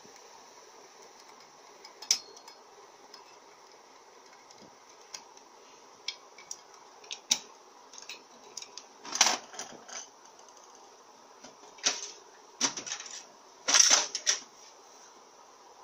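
Small metallic clicks and taps of a screwdriver and pick working valves out of an automatic-transmission valve body on a metal bench. Louder clattering knocks come about nine, twelve and fourteen seconds in.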